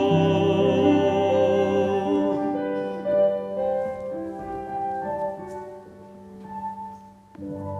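A solo singer holds the final word of a hymn with vibrato, ending about two and a half seconds in, and the keyboard accompaniment carries on alone with a soft closing passage.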